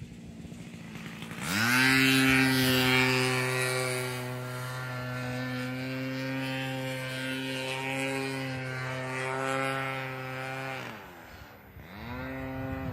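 33cc gas two-stroke engine and propeller of an Ultra Stik RC airplane in flight. About a second and a half in, its note rises sharply into a loud, steady buzz that holds for about nine seconds, then drops and picks up again near the end.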